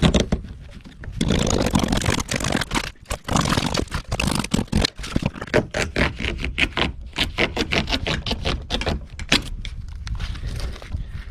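Wall paneling being pried and torn off the frame of an RV: scraping with a dense run of sharp clicks, cracks and snaps, easing briefly about half a second in.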